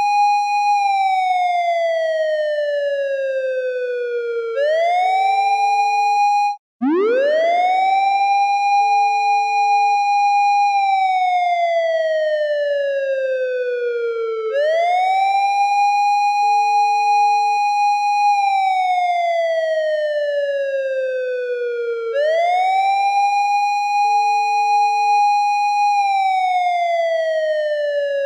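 Japanese police car siren wailing in slow cycles: the pitch holds high, slides down over about four seconds, then sweeps quickly back up, about every seven and a half seconds. A little over six seconds in it cuts out for a moment and starts again from a low pitch, rising back up to the top.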